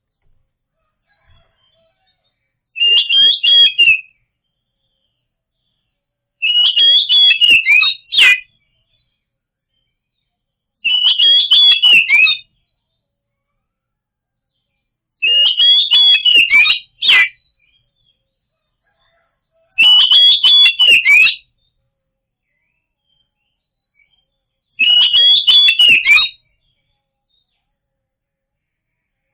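Oriental magpie-robin (kacer) singing loud, harsh phrases of rapid notes. There are six bursts of about a second and a half each, spaced a few seconds apart with silence between them. It is a lure recording meant to prompt a silent kacer to sing.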